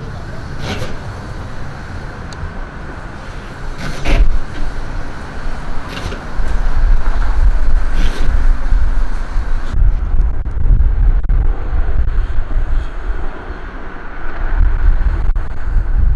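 Street traffic noise, with wind buffeting the microphone as a heavy low rumble from about six seconds in.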